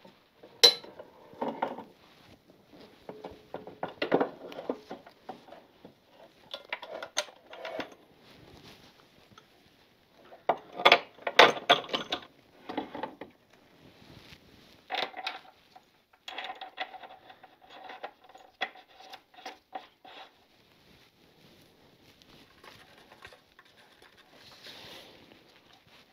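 Irregular metallic clinks, knocks and rattles as a motorcycle rear wheel with its sprocket is manoeuvred back into the swingarm and its axle fitted. The clatter is busiest about halfway through, with a quick run of light ticks shortly after.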